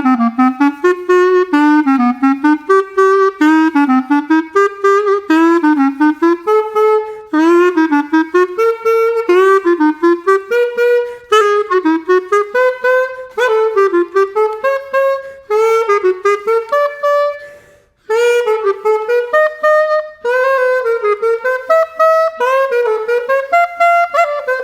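Cheap hot-pink plastic clarinet played with its stock mouthpiece and reed, the reed just repositioned: a busy melodic line of quick notes in phrases, broken by short pauses for breath. It has a very authentic "Squidward" tone, its squeakiness put down by the player to the cheap mouthpiece and reed.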